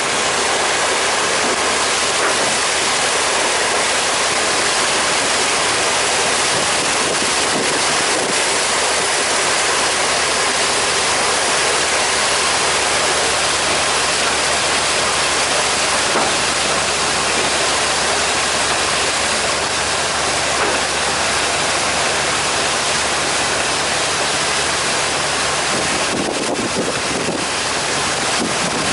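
Steady rushing of wind on the microphone and water along the hull of a moving river slow boat, with a faint low engine hum underneath.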